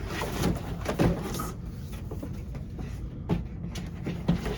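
Corrugated cardboard being handled and fitted together: scattered scrapes, rustles and light knocks, the loudest about a second in.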